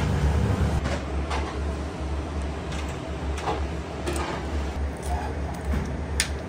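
Kitchen room tone: a steady low hum with a few light clicks and taps from small turban shells and a metal pick being handled. The sharpest tap comes about six seconds in.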